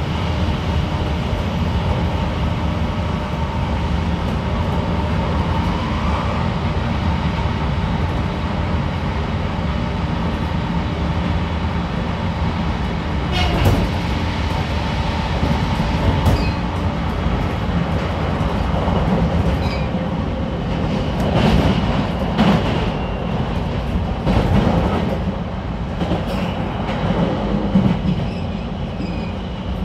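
JR Kyushu 813 series electric train running at speed, heard inside the motor car: a steady rumble of wheels and running gear. From about halfway on, sharp clacks come at irregular intervals as the wheels pass over rail joints and points.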